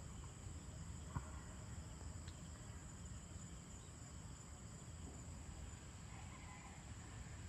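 Faint insect chorus at dusk: one steady high-pitched trill over a low background rumble, with a single sharp click about a second in.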